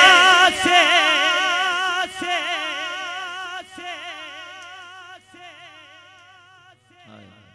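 A man holding one long sung note with a wavering vibrato, dying away steadily through the sound system's echo until it is barely audible near the end. A faint low electrical hum sits underneath.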